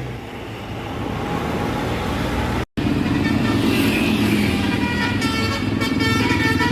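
Bus engine running among traffic, then, after a short cut, a Basuri telolet multi-tone bus horn starts up in the last couple of seconds, playing a melody of changing notes.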